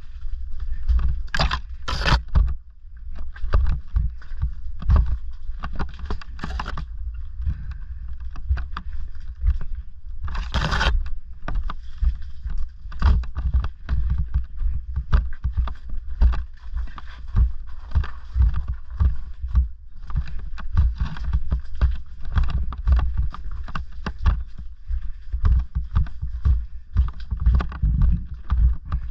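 Bafang BBSHD-powered Orange Gyro e-bike rattling and jolting over loose rocks on a rough lane, tyres crunching on stones, with a constant low rumble and many irregular knocks. It is heard through a helmet-mounted microphone. A few brief, louder scrapes stand out in the first half.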